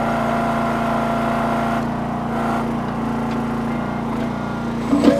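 Small engine of a towable backhoe running steadily while the machine digs, with a couple of sharp clanks near the end.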